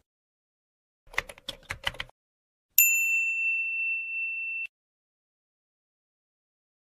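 Sound effects of a subscribe-button animation: a quick run of about half a dozen clicks, then a bright notification-bell ding that rings on one pitch for about two seconds and cuts off suddenly.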